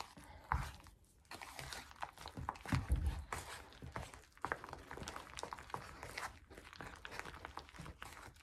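Thick lightweight spackling and paint being stirred by hand in a bowl: irregular scraping and sticky clicking, with a couple of louder knocks against the bowl.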